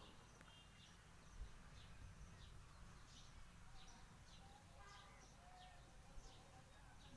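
Faint birds chirping outdoors, short high calls repeating about twice a second over a low, steady rumble of background noise.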